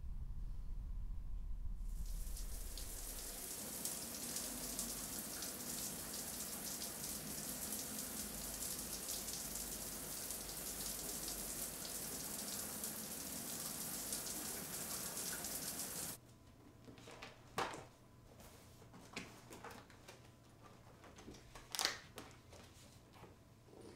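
Shower spray running steadily for most of the time, then cutting off abruptly; a low hum comes before it. After the water stops, there are a few light clicks and knocks of objects handled on a table, with one sharper knock near the end.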